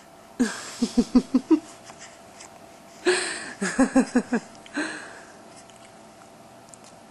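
Two bursts of laughter, each a quick run of breathy "ha-ha" pulses, the first about half a second in and the second about three seconds in.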